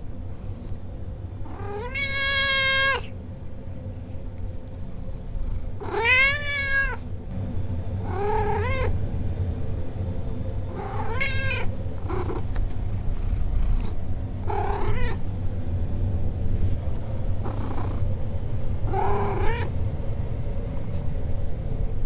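A domestic cat meowing nervously: six drawn-out meows a few seconds apart, the first two the longest, over a steady low background hum.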